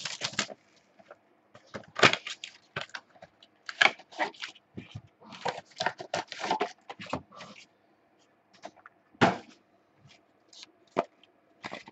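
A sealed box and packs of trading cards being opened by hand: wrapping and cardboard crackling, ripping and clicking in quick irregular bursts, thinning out to a few isolated clicks in the last few seconds.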